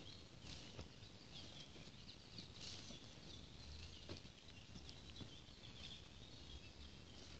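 Near silence: faint footsteps through dry grass and soil as a person walks slowly, with faint bird calls in the distance.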